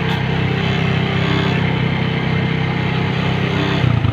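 Motorcycle engine running steadily, with a brief louder moment and a change in its note near the end.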